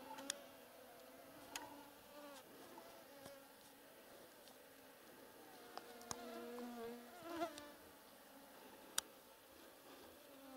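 Flying insects buzzing close to the microphone, a faint wavering hum that swells as they pass. A few sharp clicks cut in, the loudest near the end.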